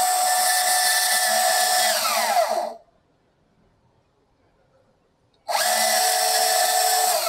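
DeWALT cordless portable band saw with a dual-trigger switch, running at full speed, then released and spinning down with a falling whine about two seconds in. After a few seconds of quiet it is started again and runs steadily, starting to wind down near the end. The saw runs only while both triggers are held.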